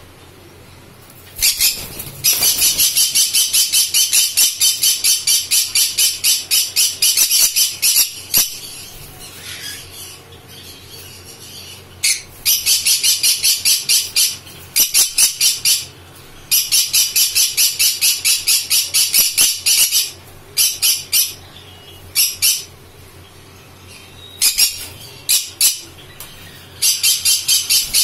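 Pineapple green-cheeked conure calling in fast runs of loud, high-pitched squawks, about four or five a second, each run lasting a few seconds with short pauses between.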